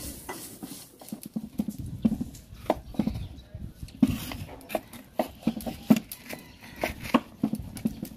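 A knife chopping pieces of cow skin (wele) on a wooden cutting board: irregular knocks of the blade on the board, about one or two a second.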